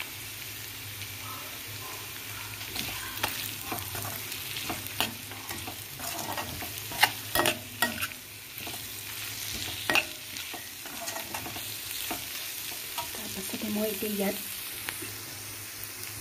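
Cut drumstick (moringa) pods frying in a metal kadai with spice powders, a steady sizzle under the scrape and clack of a metal spatula against the pan as they are stirred. The sharpest scrapes come about seven and ten seconds in.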